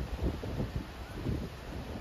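Wind buffeting the microphone in irregular low gusts, over a steady faint hiss.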